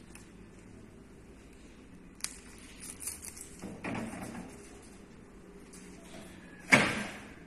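Stainless-steel table frame being handled: a sharp click about two seconds in, a stretch of light clatter and scraping, then a loud metal clank with a short ring near the end as the frame is tipped onto its end on the tiled floor.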